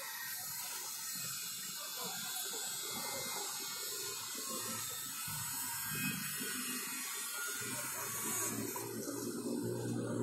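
Steady outdoor ambience under an approaching storm: an even hiss of open air and distant city sound, with faint far-off voices.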